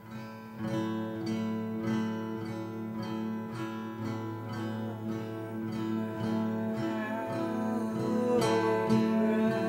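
Background music: an acoustic guitar strummed in a steady, even rhythm, with a wavering melody line coming in over it in the second half.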